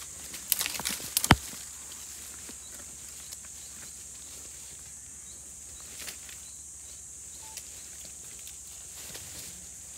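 Komodo dragons tugging at a wild boar carcass in dry brush: a quick run of sharp cracks and snaps about a second in, the last one the loudest, then only faint scattered ticks over a steady high-pitched hiss.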